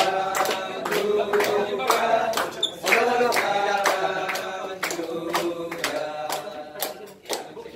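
A group of people singing a birthday song together, clapping along in time at about two claps a second.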